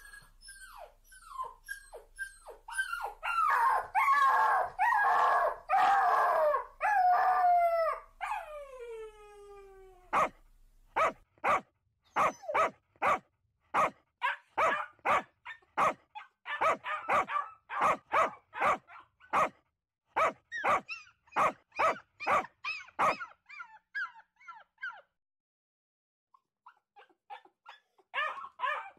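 Two dogs barking and howling at each other. First come whining, gliding calls that pile up into loud overlapping howls, one ending in a long falling howl about nine seconds in. Then a run of sharp barks comes, two or three a second, breaks off for a few seconds, and starts again near the end.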